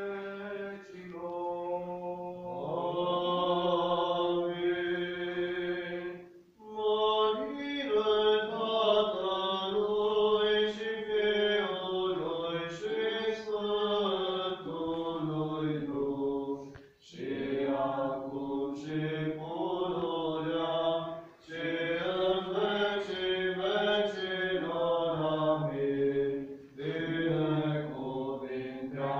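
Orthodox liturgical chant sung during a church service, in long held phrases with short breaks between them.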